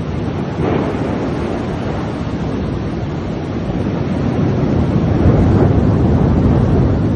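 Heavy rain in strong wind, with gusts buffeting the microphone in a steady low rumble; the noise swells a little about five seconds in.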